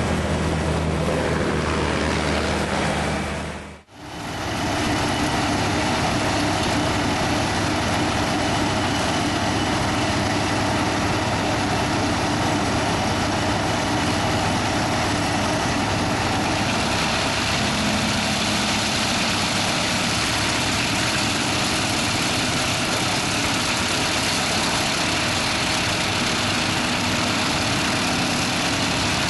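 Heavy machinery engine running steadily under load as it drives a soil-milling attachment. The sound drops out sharply for a moment about four seconds in, then carries on at the same level.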